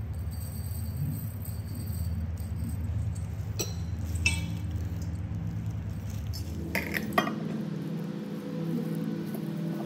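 A metal spoon clinking against a glass jar a few times as rice powder is spooned in, the clinks short and sharp with a brief ring, over steady background music.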